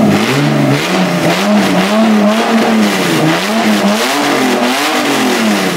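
BMW E30 M3 engine running and being revved in repeated blips, its pitch rising and falling about once a second.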